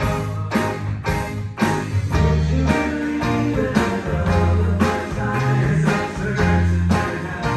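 A live band plays at a rehearsal or sound check: guitar over held bass notes, with a steady beat about twice a second.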